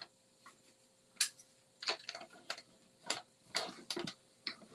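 Irregular light clicks and clacks of clear plastic cutting plates being handled and slid into the feed slot of a hand-cranked die-cutting machine, about ten in all.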